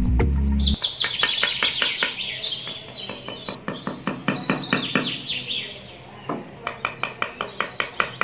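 Background music stops under a second in, and small birds take over, chirping in quick runs of short, high chirps that grow rapid and evenly spaced near the end.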